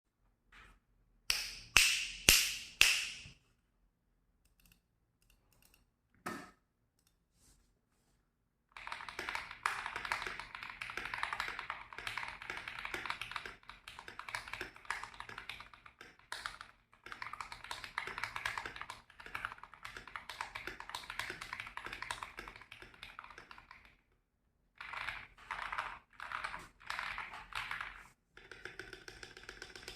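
TM680 mechanical keyboard with lubed Akko Radiant Red linear switches and lubed stabilizers, tape- and foam-modded, being typed on. A few loud key strokes come about two seconds in. Fast continuous typing follows from about nine seconds to about twenty-four, and short bursts of typing come near the end.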